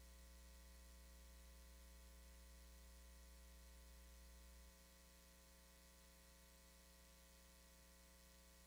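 Near silence: a faint steady hum and hiss on the line, whose deep low part drops away about halfway through.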